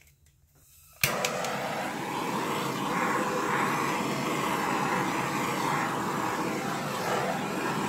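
Handheld gas torch lit with a sharp click about a second in, then burning with a steady rushing hiss of flame.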